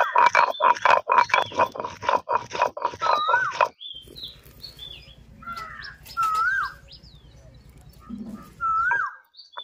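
Spices being ground by hand on a grinding stone: rhythmic back-and-forth strokes, about three a second, that stop about three and a half seconds in. A bird calls repeatedly with a short rising-and-falling chirp.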